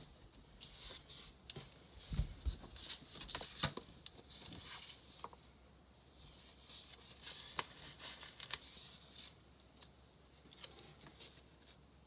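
Hands handling paper sticker sheets and a spiral planner: light rustling, crinkling and small taps, with a soft thump about two seconds in.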